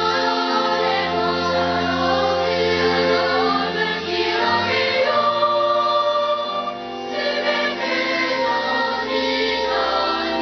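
Choir singing a hymn in long held chords.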